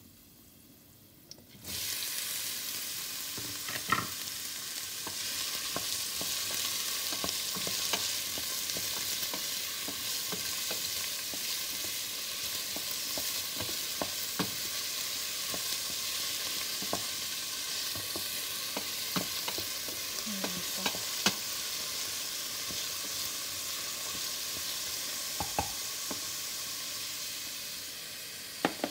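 Chopped onions tipped into hot oil with frying garlic in a stainless steel pan, the sizzling starting suddenly about two seconds in and running on steadily. A spatula scrapes and ticks against the pan as the onions are stirred.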